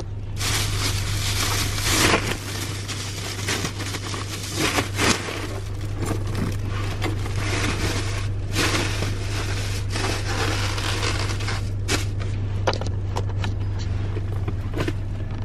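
A takeout food bag or container being handled and closed shut: continuous crinkling, rustling and scraping with many small crackles. A steady low hum runs underneath.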